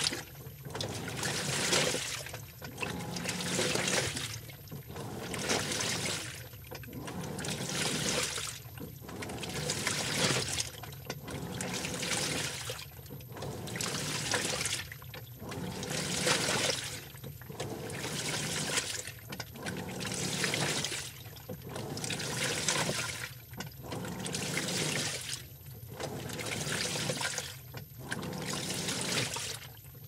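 Washing machine on its wash cycle: water and clothes sloshing in the turning drum in surges about every two seconds, with short pauses between. A faint, very high electronic tone from the machine runs underneath.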